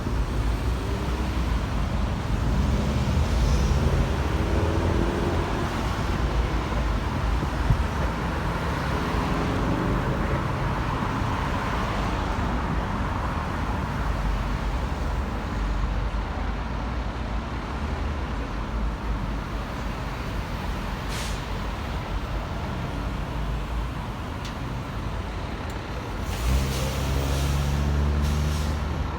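A 2023 Pierce Enforcer fire ladder truck's diesel engine running. Its note climbs a few seconds in and again near the end as it pulls under load. A short hiss of air comes about two-thirds of the way through.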